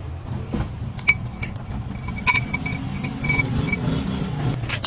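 Light metal clinks and taps of tools on metal parts, with a small part ringing briefly at one high pitch several times, over a steady low hum.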